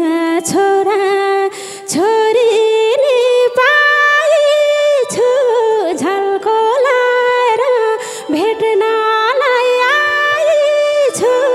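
A woman singing a Nepali dohori verse into a microphone, holding long notes with small bends and turns, nearly unaccompanied. Instruments come in just after the line ends.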